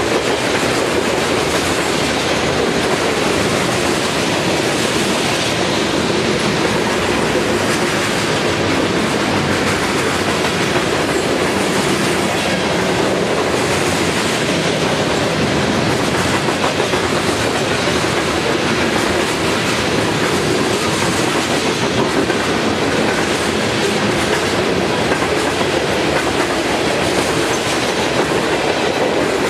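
Freight train of covered hopper cars rolling past close by: a steady, loud noise of steel wheels on rail that holds even throughout.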